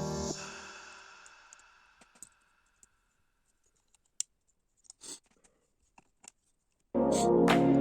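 Background music fades out, leaving a few faint, scattered clicks of plastic LEGO pieces being handled and fitted, with a brief soft rustle about five seconds in. The music starts again abruptly near the end.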